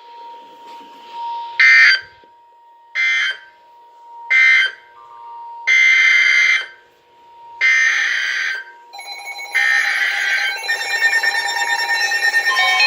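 Emergency Alert System data bursts. First come three short screeching bursts, the end-of-message code closing the severe thunderstorm warning. Then come three longer bursts, about a second each, the SAME header opening the tornado warning. A faint steady tone runs underneath, and a layered tone with stepping pitches starts near the end.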